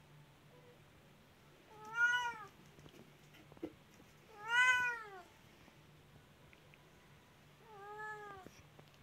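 Cat meowing three times, each meow rising and then falling in pitch. The second meow, about halfway through, is the loudest, and the last is quieter.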